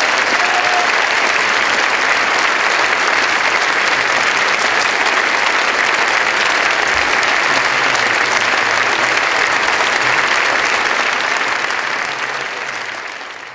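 Audience applauding steadily after a ballet solo, dying away over the last couple of seconds.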